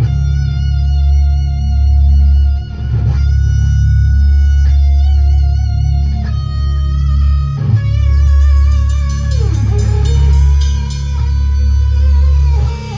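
Live rock band playing: electric guitar holding long, slightly wavering notes that change pitch every second or two over a deep, steady bass, with a quick run of high ticks from the drum kit about eight seconds in.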